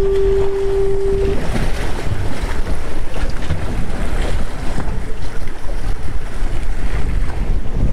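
Wind buffeting the microphone over choppy, splashing water. A single steady tone sounds for about the first second, then stops.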